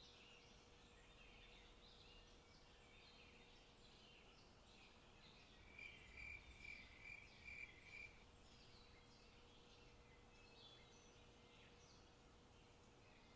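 Faint forest ambience with many small bird calls and chirps. About six seconds in, one bird repeats a short clear note about six times over two seconds, the loudest sound.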